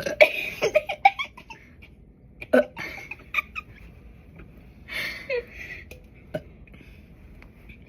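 Stifled giggling from two girls, in short breathy bursts that come in three spells.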